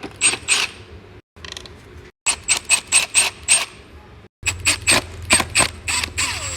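Screws being backed out of a Shark vacuum's plastic housing with a PH2 Phillips bit: quick runs of sharp ratcheting clicks, several at a time, broken by a few brief gaps.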